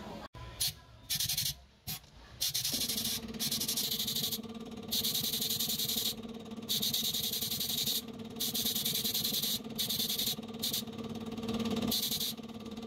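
A jeweller's electric motor tool starts about three seconds in and runs with a steady hum. A harsh grinding hiss cuts in and out over it in bursts of about a second.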